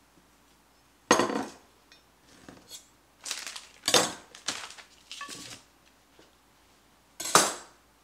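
Dishes and a chef's knife clattering on a kitchen countertop: a sharp knock about a second in, a run of clinks and knocks in the middle, and another loud knock near the end.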